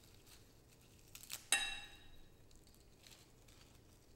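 Soft rustling and tearing of fresh herb leaves being picked by hand. About a second and a half in, there is a sharp clink of ceramic that rings briefly.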